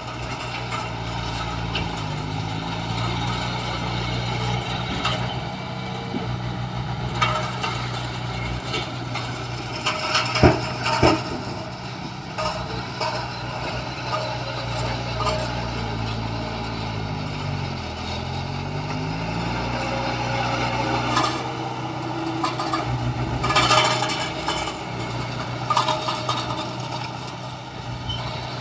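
Heavy diesel earthmoving machinery running steadily, its engine note dipping and then rising again about two-thirds of the way through, with scattered metallic clanks and knocks.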